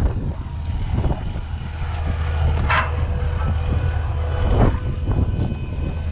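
Heavy diesel engine idling steadily with a constant low hum.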